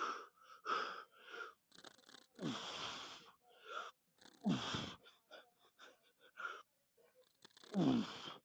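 A man breathing hard and grunting through a heavy lifting set: quick sharp breaths, then three long, forceful exhales with a falling grunt, spaced about two to three seconds apart.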